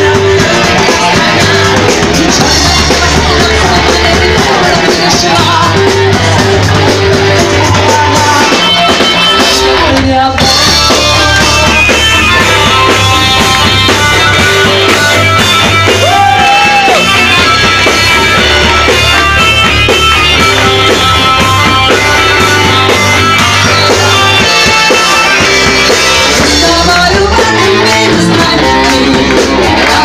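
Live folk-metal band playing loudly: distorted electric guitar, bass and a drum kit in a steady driving rhythm, with a voice heard at times.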